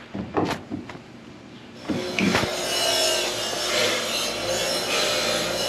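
A few sharp knocks as hands work bolt plates into the plastic kayak hull. About two seconds in, a power tool starts and then runs steadily with a loud hiss.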